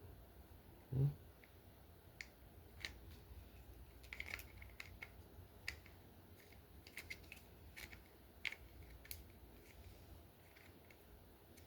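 Small plastic toy packaging being handled and opened: scattered light clicks and taps, with one short low thump about a second in.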